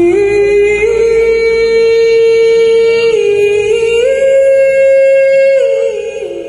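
A single voice singing a slow line of long held notes, stepping up and down in pitch, with no drumming, fading near the end.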